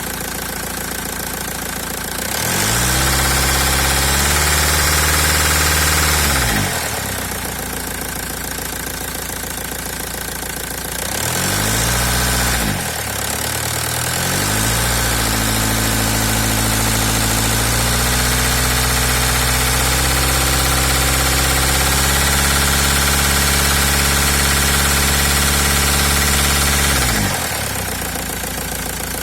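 Opel Y22DTR 2.2-litre four-cylinder turbodiesel idling, then revved up and held three times: briefly about two seconds in, shortly again near the middle, and then for a long hold that steps higher partway through before dropping back to idle near the end. It is being run to show an extraneous noise from the engine.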